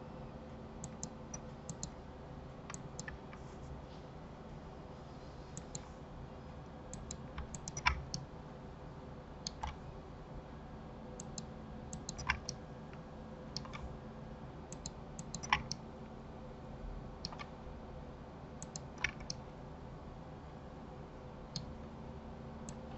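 Computer keyboard keys and mouse buttons clicking irregularly while working in a 3D program, a few clicks louder than the rest, over a faint steady low hum.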